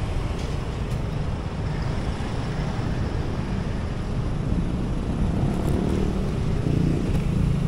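A car running with a steady low rumble of engine and road noise.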